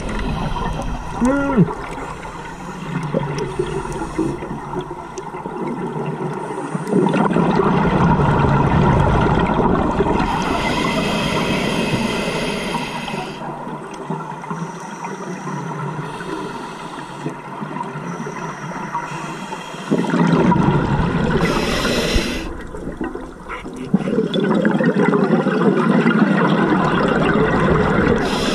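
Scuba diver breathing through a regulator underwater: long bubbling exhalations alternating with shorter hissing inhalations, a few seconds apart. There is a brief squeak that sweeps up and down about a second and a half in.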